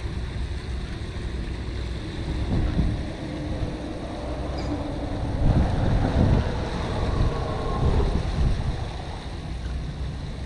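Wind buffeting the microphone over a steady rush of water from a canal spillway, with stronger gusts in the middle stretch.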